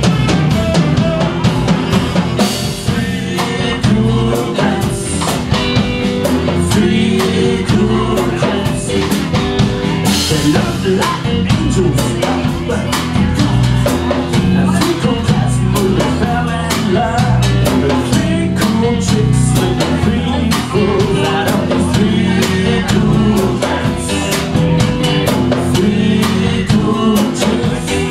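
Live band playing an upbeat rhythm-and-blues number: drum kit, electric guitars and saxophone together.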